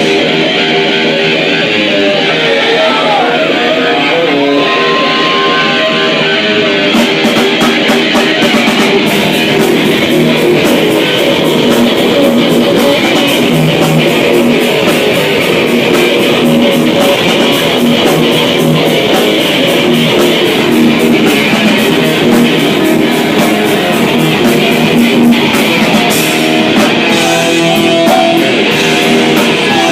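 Rock song played live by a band, with guitar to the fore.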